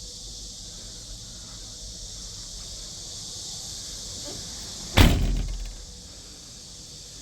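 The excavator's cab door slamming shut once, about five seconds in, over steady cricket chirring.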